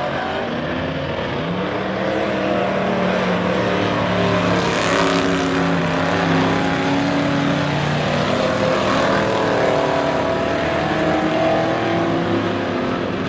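A field of stock cars racing on a short oval, several engines running hard at once and rising and falling in pitch as they pass, the loudest pass about five seconds in.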